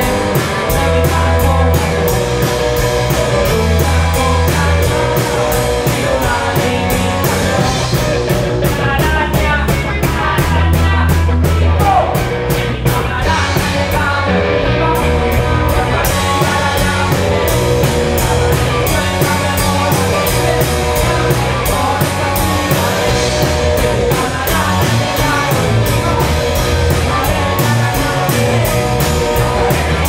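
Live rock band playing loudly: electric guitar, electric bass and drum kit with a steady beat, and a man singing into the microphone.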